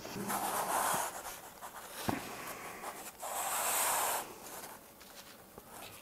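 Handling noise: two soft rubbing swishes about three seconds apart, with a single light click between them, as the diorama board is picked up and moved.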